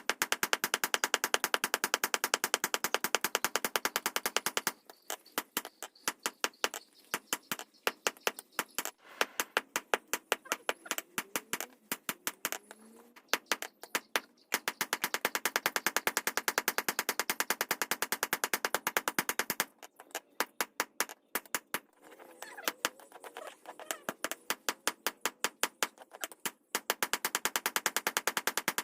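Rapid, evenly spaced hammer taps on metal, many a second, each with a metallic ring, in runs of several seconds broken by short pauses and slower, irregular taps.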